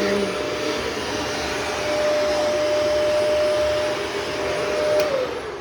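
Vacuum cleaner motor running with a steady whine and rushing air. Near the end there is a click, the whine slides down in pitch and the sound fades as the motor is switched off and spins down.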